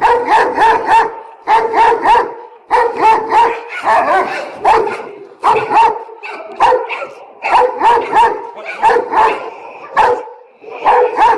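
Doberman barking angrily in quick volleys of two to four barks, the volleys about a second apart.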